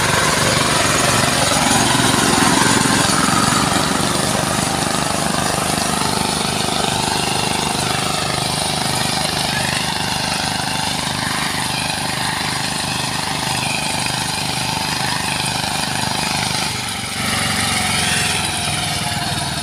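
Walk-behind power tillers' diesel engines running steadily under load while tilling between sugarcane rows, with a fast, even engine beat. Voices can be heard in the background.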